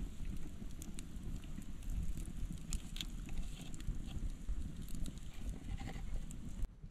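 Charcoal fire crackling with scattered sharp pops and clicks over a dense low rumble, which is the loudest part. Everything drops off abruptly near the end.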